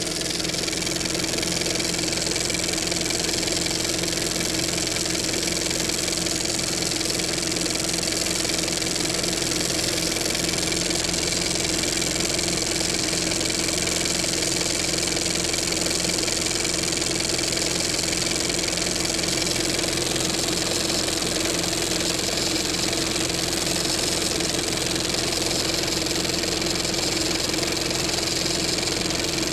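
Film projector running steadily: an even mechanical whir with a constant motor hum.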